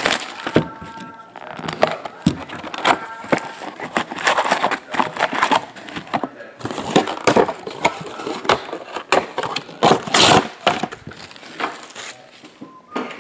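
Plastic shrink-wrap crinkling as it is torn off a trading-card box, then the cardboard box and foil card packs rustling and clicking irregularly as they are taken out and stacked.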